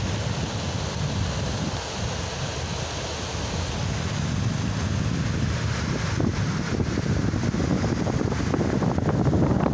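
Whitewater of a shallow, rocky river rapid rushing steadily, with wind rumbling on the microphone, heavier in the second half.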